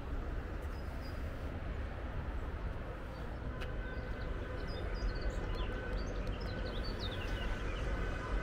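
Outdoor city ambience: a steady low rumble under a constant background hiss, with a small bird chirping in quick, short high notes from about four seconds in.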